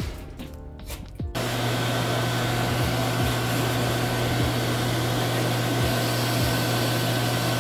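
Pet grooming dryer blowing air steadily through its hose nozzle onto a wet dog, a loud even whooshing hum with a faint steady whine. It starts about a second in.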